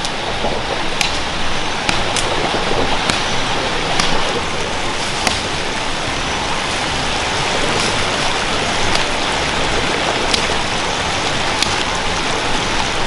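A steady rushing noise like flowing water, crossed every second or so by sharp knocks as a machete chops into a branch.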